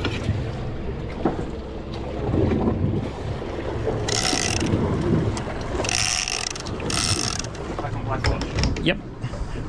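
Boat under way with a steady low rumble and wind on the microphone. Three short mechanical ratcheting buzzes come about four, six and seven seconds in.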